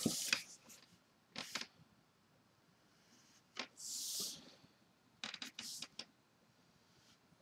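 Soft rustling of drawing paper and a hand sliding across it while inking, in a few brief bursts. The loudest is a short hiss about four seconds in, and a quick cluster of rustles comes a little later.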